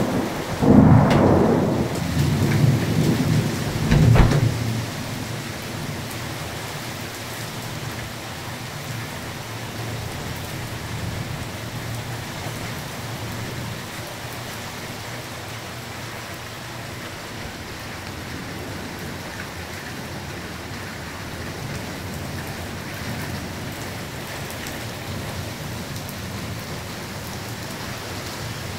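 Thunder rumbling loudly in the first few seconds, with a sharp crack about four seconds in, then steady heavy rain during a thunderstorm.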